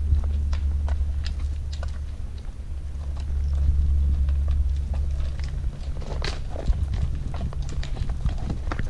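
Horses walking on a rocky dirt trail, their hooves giving irregular clip-clop knocks, over a steady low rumble.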